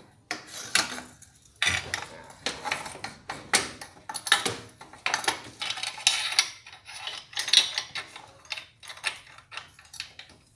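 Chrome Pro Liner exhaust pipe clinking, knocking and scraping metal on metal against the motorcycle's frame and mountings as it is worked into place, in irregular strokes.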